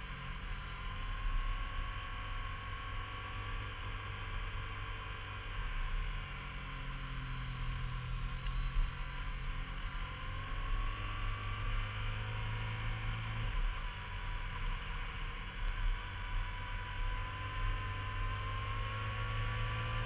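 Sport motorcycle engine running at road speed through curves, its pitch rising and falling with the throttle, and the engine note changes abruptly about two-thirds of the way through. Steady wind rush at speed.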